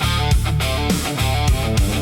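Instrumental blues-rock with electric guitar, bass and a steady drum beat.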